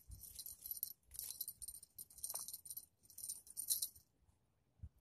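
Crisp, high rustling and scraping handling noise close to the microphone, in four short bursts over about four seconds, then it stops.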